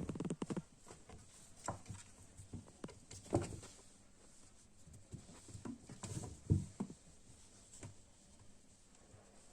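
Two kittens play-fighting: irregular soft thumps, scuffles and pattering paws, with a few louder bumps near the start, a third of the way in and about two-thirds in.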